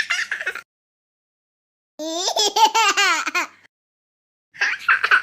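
High-pitched laughter in three bursts: a short one at the start, a longer run of quick repeated laughs from about two seconds in, and another starting near the end.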